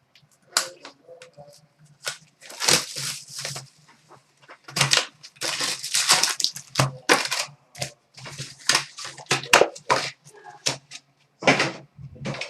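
Trading card box packaging being torn open and handled: irregular crinkling and ripping noises in quick runs.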